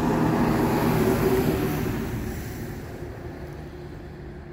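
Motor vehicle going by, a steady engine hum under road noise, loudest about a second in and then fading away over the next few seconds.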